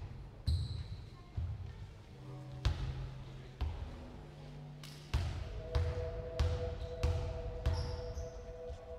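A teqball rally: the ball thudding off players' feet and the curved teqball table in a run of sharp hits, coming steadily about every two-thirds of a second from about halfway in.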